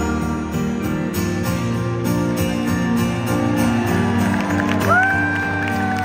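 Live acoustic guitar and vocal performance of a slow song, the guitar strummed steadily under the band. About five seconds in, a single clear high note slides in, is held for over a second and falls away.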